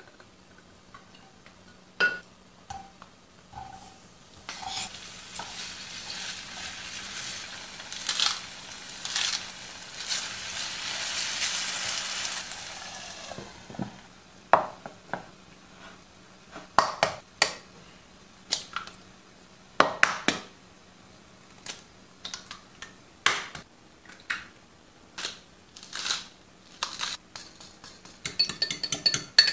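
Diced potatoes sizzling in oil in a frying pan, the sizzle lasting several seconds and stopping about halfway through. Then a series of separate knocks from a wooden pestle pounding in a small mortar, and near the end quick clinks of a fork beating egg in a bowl.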